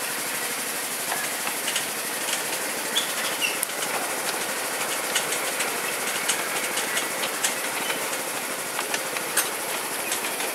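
Miniature railway train running along the track, heard from an open passenger car: a steady rattling noise of the wheels and carriages, broken by many irregular sharp clicks and clacks.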